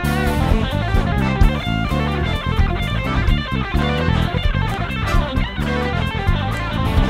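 Live band music: a busy electric guitar line over a drum kit, playing without a break.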